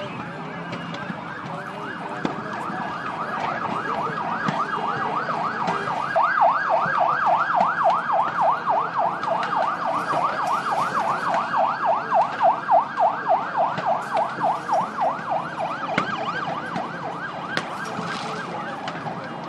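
Emergency vehicle siren sounding, settling about six seconds in into a fast yelp of roughly four to five rising-and-falling sweeps a second.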